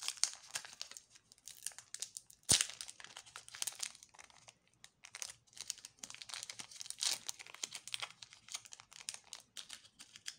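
Foil trading-card booster pack wrapper crinkling and tearing in the hands, in quick irregular crackles, with one sharp click about two and a half seconds in.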